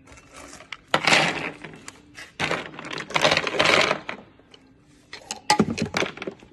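Raw cashew nuts rattling in the hopper of a moisture meter as it is shaken and tipped, in two dense clattering spells. Near the end, single nuts click down onto the wooden tabletop.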